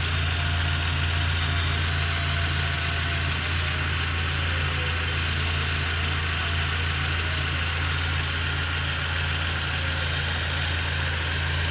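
Car engine idling steadily with the air conditioning compressor running during an R134a refrigerant recharge: a constant low hum with an even hiss over it.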